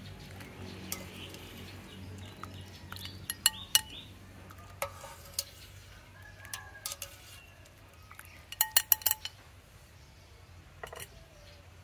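Metal clinks of a wire-mesh strainer knocking against a stainless-steel soup pot as aromatics are scooped out of the broth. There are scattered single ringing clinks, then a quick run of about five a little past the middle, over a steady low hum.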